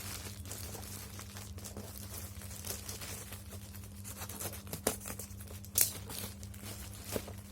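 A package being unwrapped by hand: plastic and tape crinkling and tearing, with scattered sharp clicks and snaps, the loudest a little before six seconds in. A steady low hum runs underneath.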